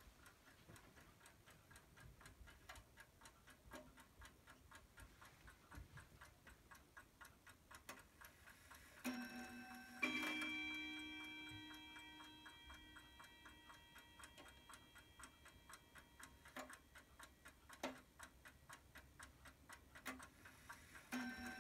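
Weimar Uhren wall clock movement ticking faintly and steadily. About nine seconds in its gong is struck, then struck again more loudly a second later and rings on, fading over several seconds. Near the end another strike begins as the minute hand is turned round to the hour.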